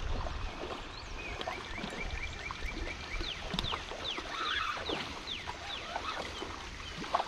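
Birds calling: a run of short, high chirps, each falling in pitch, repeated several times a second, over a low steady rumble of creek water or wind.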